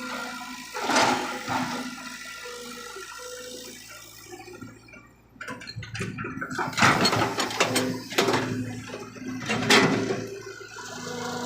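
Excavator running with a steady hum, with several loud rushing surges about a second in and again between six and ten seconds in.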